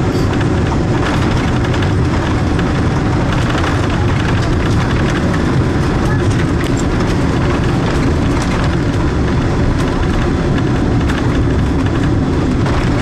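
Steady, loud rumble inside the cabin of a Boeing 777-300 rolling down the runway after touchdown: jet engine noise mixed with the rumble of the wheels on the runway.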